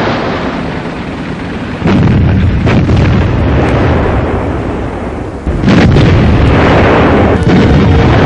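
Heavy naval guns firing from a warship, two blasts about two seconds and five and a half seconds in, each followed by a long, loud rumble.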